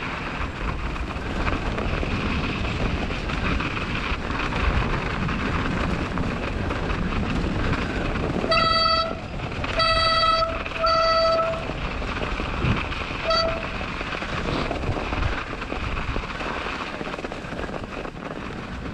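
Bicycle riding down a snowy track: a steady rush of wind and rolling noise. About halfway through come three short, steady, high-pitched toots, each about half a second long, and a brief fourth one a couple of seconds later.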